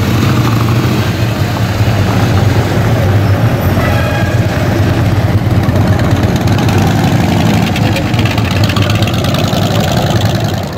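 Several Harley-Davidson V-twin motorcycle engines running at low revs as the bikes ride off slowly, a loud, steady low engine sound.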